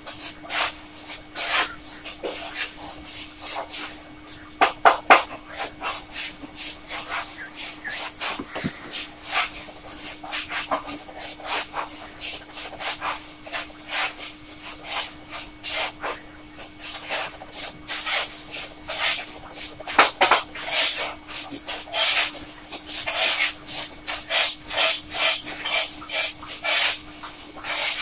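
Fountain pen nib scratching across paper in short hatching strokes, one quick scratch after another, coming faster and louder in the last third, over a faint steady hum.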